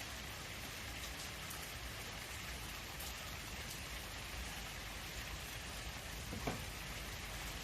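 Steady rain falling, with a few scattered drip clicks and a couple of soft low knocks about six and a half seconds in.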